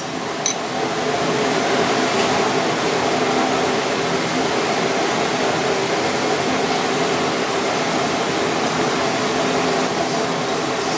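Steady whir of a kitchen ventilation fan with a constant hum, and a light metal tap about half a second in.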